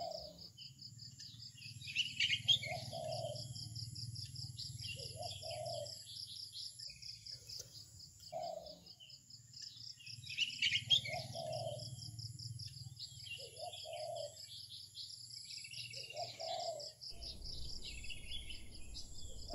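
Ambient insects trilling in a steady rapid pulse, with birds chirping over it, loudest about 2 s and 11 s in. A faint low hum underneath stops near the end.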